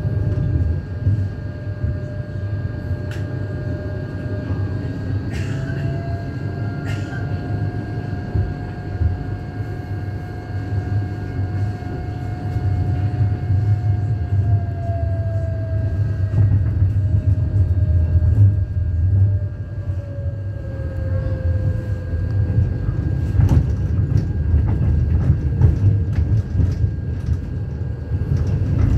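Electric tram running on street track: a steady low rumble of wheels on rail under the whine of the traction motors. The whine rises a little, holds, then falls away over the second half, and a few sharp clicks come through.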